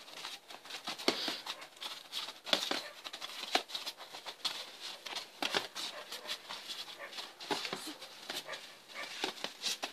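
Muay Thai sparring: boxing gloves and bare feet make irregular sharp slaps and thuds as punches land on guards and fighters step on the mat, over a steady high hiss.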